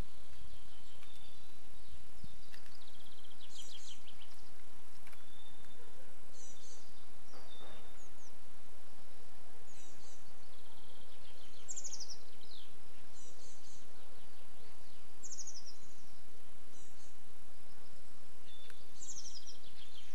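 Small songbirds singing short, high, rapid trilled phrases every second or two, over a steady low background noise.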